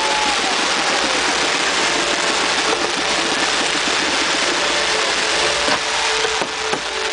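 Dense fireworks barrage: many shells, comets and fountains firing at once in a continuous crackling, hissing rush, with a whistle trailing off at the very start and a few sharper bangs near the end.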